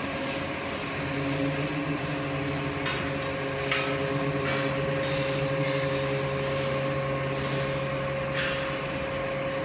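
Large hydraulic car scissor lift, carrying about 3.7 tonnes of test weights, lowering under load: a steady hum with a constant pitch, with a few short squeaks about four seconds and eight and a half seconds in.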